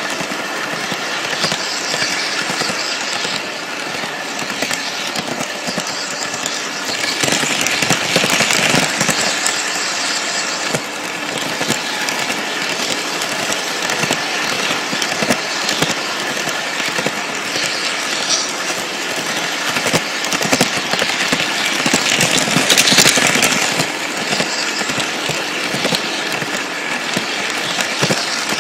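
Lionel toy train running on its track, heard up close from one of its own cars: a steady mechanical whir and rattle with dense clicking of wheels over the rails. It swells louder twice along the way.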